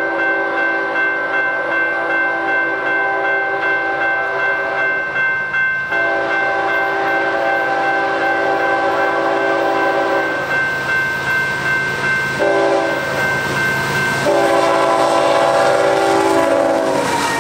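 Union Pacific diesel freight locomotive sounding its multi-chime air horn in four blasts, long, long, short, long: the grade-crossing signal. The horn chord drops in pitch near the end as the locomotive passes, over the steady rumble of the engine and the freight cars.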